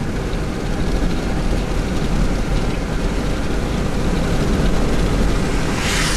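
Steady rumble of a vehicle on the move, with road and wind noise heavy in the low end. A short hiss rises near the end.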